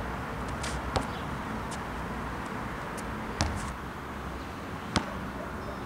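Basketball bouncing on an outdoor asphalt court: three separate bounces a second or two apart, over wind rumble on the camera microphone.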